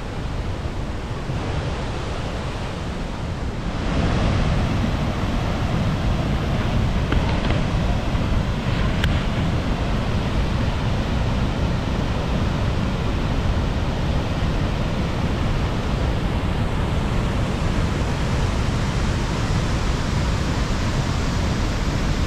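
Ban Gioc Waterfall's water rushing steadily, getting louder about four seconds in.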